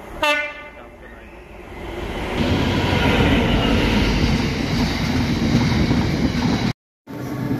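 A freight train of hopper wagons behind a locomotive runs past close along the platform. The rumble builds from about a second in to a loud, steady rush of wheels and wagons, which cuts off abruptly near the end and then resumes quieter. A brief pitched tone sounds at the very start.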